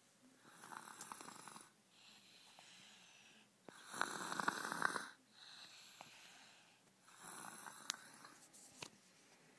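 Snoring: three snores about three and a half seconds apart, the middle one the loudest, with quieter breaths between them.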